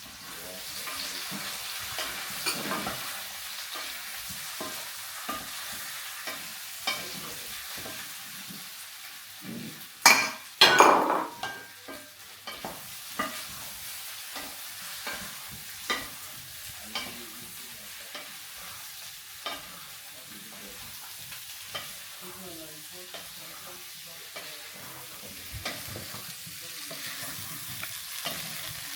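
Sliced potatoes frying in hot oil with a steady sizzle, and a utensil knocking and scraping in the pan as they are stirred. There is a louder clatter about ten seconds in.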